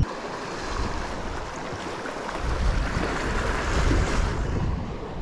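Small sea waves washing against shoreline rocks, with wind buffeting the microphone; the wash swells a little about three to four seconds in.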